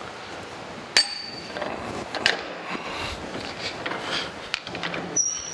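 Metal clinks and knocks as a frozen bronze bushing is set into the heated bore of a cast clutch arm under an arbor press, with one sharp ringing clink about a second in and another a little over a second later.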